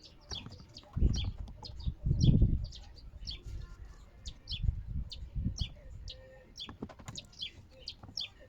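Small bird chirping over and over, short high chirps a few times a second. Low rumbling bumps about a second and two seconds in are louder than the chirps, with a few softer ones later.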